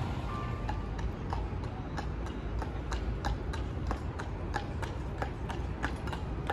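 Carriage horse's shod hooves clip-clopping at a walk on wet road, about three clops a second, over a steady low city rumble.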